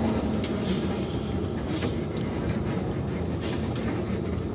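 Intercity bus running on the road, heard from inside the cabin: a steady low rumble of engine and road noise with a few faint rattles.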